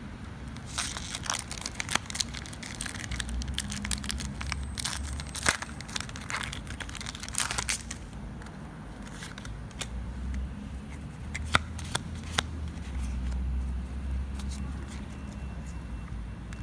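Foil wrapper of a Pokémon trading-card booster pack crinkling and tearing as it is opened, a dense run of crackles through the first half. After that only a few sharp clicks over a low handling rumble.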